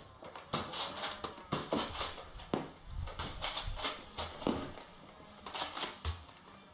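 Irregular sharp clacks and knocks from the Nerf fight at close range, with dull thumps about three seconds in and again near six seconds.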